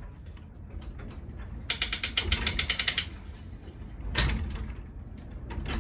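Rope-and-pulley hoist clicking in a rapid run, about ten clicks a second, as the rope is hauled to lift the wet grain bag out of the brew kettle, with one louder knock about four seconds in.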